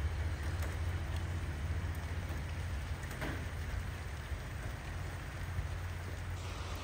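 Train rolling past: a steady low rumble under an even hiss, easing slightly toward the end.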